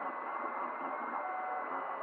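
Desktop FDM 3D printer running a print: its stepper motors whine in steady tones that shift as the print head moves, over the running hotend cooling fan.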